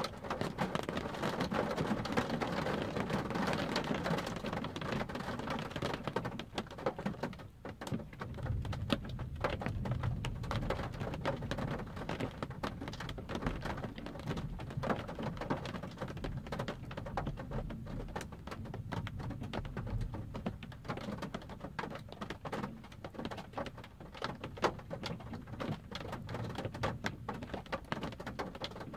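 Rain falling on a parked car's windshield and roof, heard from inside the cabin as dense, quick drop taps. A low rumble of thunder sets in about eight seconds in.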